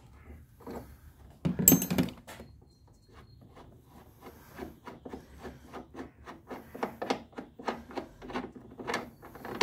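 A metal spanner clanks once with a short ring, then a ratchet spanner clicks about three times a second as the bonnet strut mounting bolt is worked loose.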